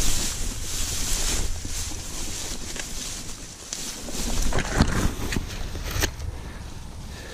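Wind rumbling on the microphone, with rustling hiss and a few sharp knocks around the fifth and sixth seconds.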